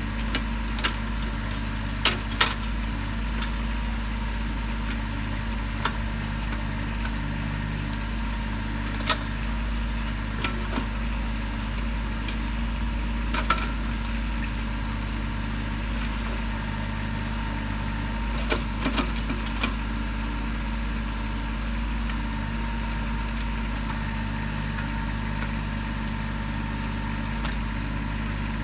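Kubota sub-compact tractor's diesel engine running steadily under backhoe work digging out a stump. A few short sharp knocks break in over the hum.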